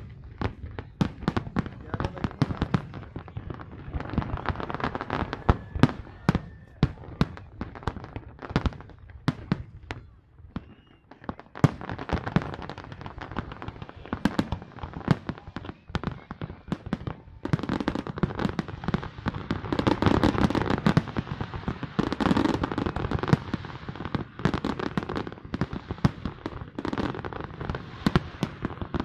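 Fireworks display going off in rapid, dense volleys of bangs and crackles. There is a short lull about ten seconds in, and the volleys grow louder and thicker in the second half.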